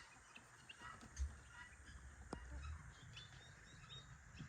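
Faint bird calls, short and scattered, with a low thump about a second in and a sharp click past the middle.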